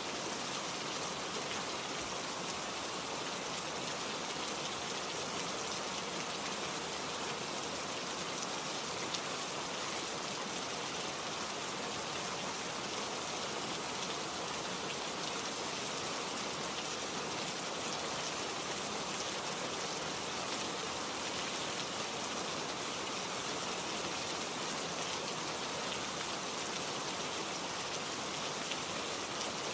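Steady rain falling, an even hiss of many drops with no change throughout.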